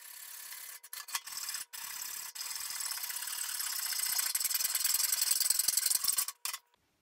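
Hand hacksaw cutting through the sheet steel of an old car's front fender, rasping steadily stroke after stroke. The sawing grows louder as it goes and stops shortly before the end.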